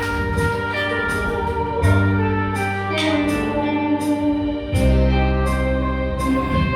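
Instrumental backing music with a sustained organ-like keyboard, held bass notes and a steady drum beat, without singing.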